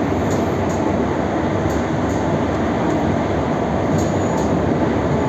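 Indian Railways express train rolling into a station: a steady rumble of coaches and wheels, with paired clicks as wheel sets pass over rail joints, a few times.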